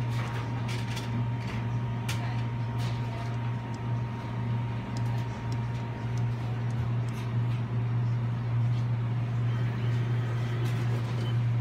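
Steady low mechanical hum of restaurant kitchen equipment, with light clicks and clatter scattered through the first few seconds.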